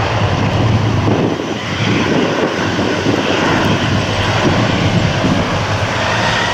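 A Boeing 777-300ER's twin GE90 turbofan engines at takeoff thrust as the jet rolls away down the runway: a loud, steady rumble.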